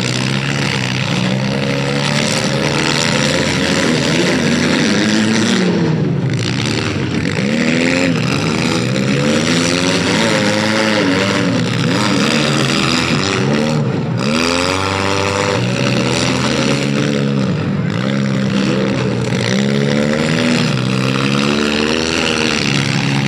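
Several demolition derby cars' engines revving over one another, their pitch rising and falling as they accelerate and back off, loud and continuous.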